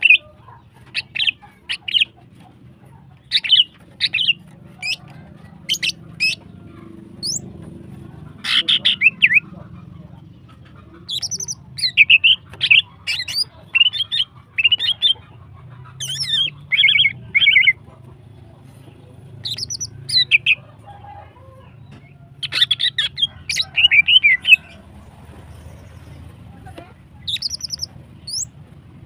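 Female greater green leafbird (cucak ijo) calling in short clusters of sharp chattering notes, some of them rising, with brief pauses between. It is the excited calling of a female in breeding condition.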